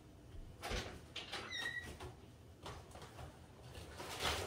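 Faint household handling noises as someone moves about the kitchen: a few soft knocks and rustles, and one short squeak about a second and a half in.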